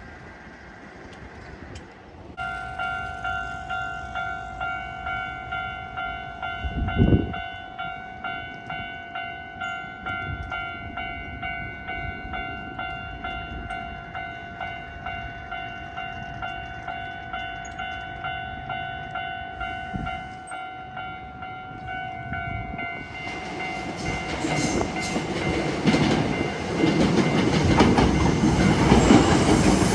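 Japanese level-crossing warning bell starts about two seconds in and rings in a steady repeating 'kan-kan' rhythm. There is a short low thump about seven seconds in. From about two-thirds of the way through, the noise of an approaching Hankyu electric train builds and grows loud near the end as it passes, drowning the bell.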